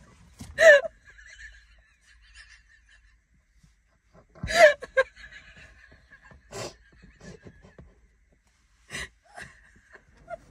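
Two women laughing almost silently, so hard that no words come: a few short breathy bursts of laughter with quiet gaps between them. The loudest burst comes about four and a half seconds in.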